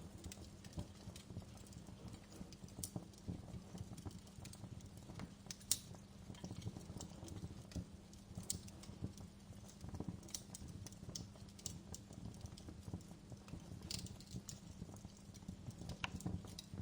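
Wood fire burning in a fireplace, with frequent irregular crackles and sharp pops over a low steady rumble of the flames; the loudest pop comes about six seconds in.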